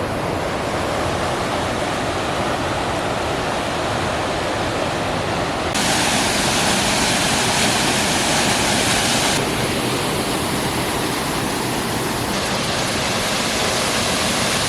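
Waterfall rushing steadily in a dense, fairly loud roar of water. About six seconds in the hiss suddenly turns brighter, then eases back a few seconds later.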